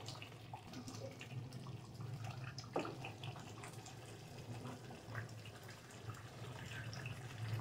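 Thick chicken curry gravy simmering faintly in a pan, with a few soft pops scattered through, over a low steady hum.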